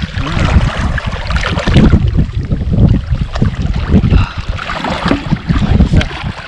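Wind buffeting the microphone in loud, uneven gusts of low rumble.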